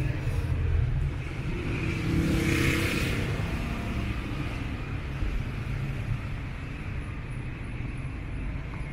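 City street traffic: vehicle engines running in a steady low rumble, with a louder rush of noise about two seconds in as a vehicle passes close.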